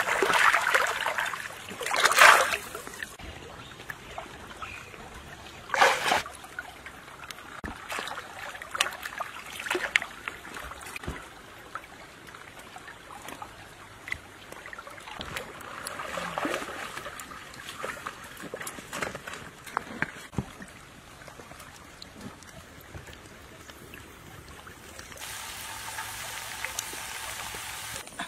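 Hands splashing and swishing in shallow river water, loudest in a few surges at the start, then scattered smaller splashes and trickling. Near the end, a steady hiss of liquid boiling in a clay pot, which cuts off abruptly.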